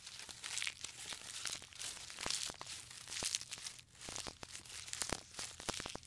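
Giraffe browsing on a tree: leaves tearing and twigs crackling and snapping as it strips the foliage, with crunching chewing. Short irregular snaps come every fraction of a second over a soft rustle.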